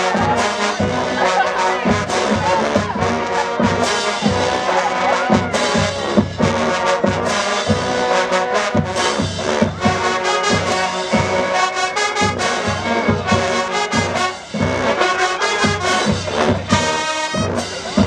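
HBCU-style marching band playing an up-tempo tune in full, the brass section of sousaphones, trombones, trumpets and saxophones carrying the melody over a steady beat. The sound drops briefly about three-quarters of the way through before the band comes back in.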